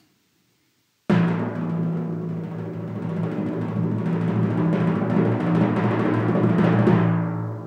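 Recorded timpani (kettle drum) roll: it comes in suddenly about a second in as rapid strokes on a low, pitched drum, swells a little, then dies away near the end.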